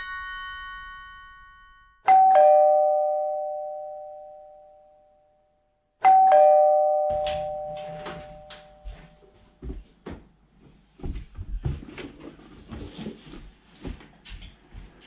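A two-tone ding-dong doorbell rings twice, about four seconds apart, each chime ringing out slowly. Then a parcel on the doorstep is picked up and carried in through the door: a run of irregular clicks, knocks and low thuds.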